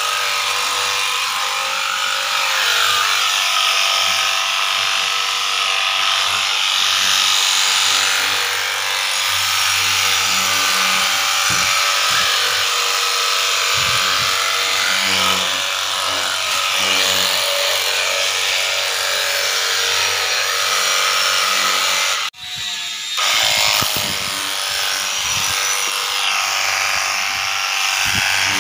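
Battery-powered high-pressure washer running, its small electric pump giving a steady whine over the hiss of the spray. It cuts out briefly about three quarters of the way through, then starts again.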